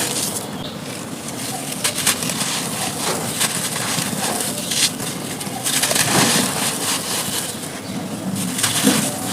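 Dry, brittle chalky material being crushed and crumbled, a dense run of small crackles and crunches with sharper snaps here and there.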